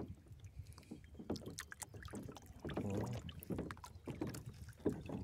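Faint sounds of a plastic kayak on a lake, with water lapping and scattered light clicks and knocks from the boat and fishing gear while a small fish is reeled up out of the water.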